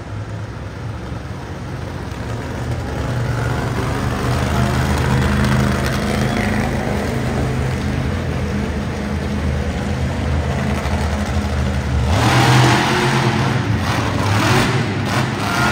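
A monster truck engine running steadily, building up over the first few seconds. About twelve seconds in, a louder burst of noise comes in over it.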